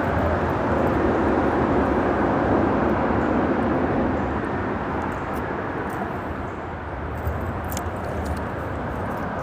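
Freeway traffic on the bridge overhead: a steady rush of passing vehicles that swells over the first few seconds and then slowly eases off.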